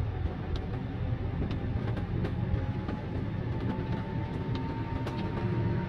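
Steady low road and engine rumble inside the cabin of a small manual car driving on a wet road, with a faint held whine that creeps slightly up in pitch. Scattered light ticks come at irregular moments, fitting raindrops striking the car.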